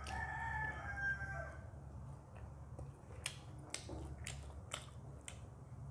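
A rooster crows in the background for about a second and a half at the start. Later come about five sharp, wet eating clicks, roughly two a second, as rice and curry are mixed by hand on a metal plate and chewed.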